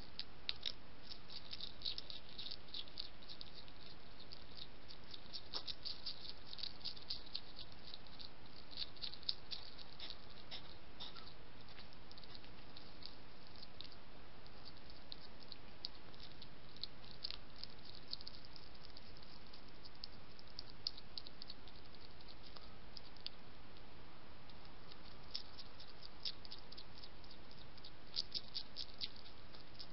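European hedgehogs chewing and crunching dry kitten biscuits: irregular runs of small sharp clicks and crackles, densest in the first third and again near the end, over a steady trail-camera hiss.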